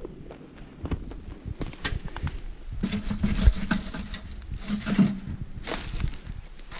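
Footsteps on dry leaf litter and twigs, an irregular run of rustles and small snaps, busiest in the middle.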